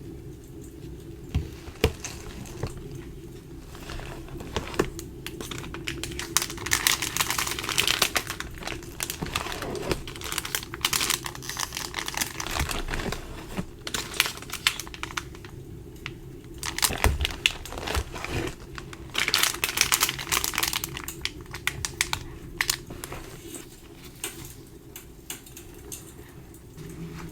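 Packaging crinkling and rustling in bursts, with light clicks and taps in between, as a box of craft supplies is unpacked by hand. A steady low hum runs underneath.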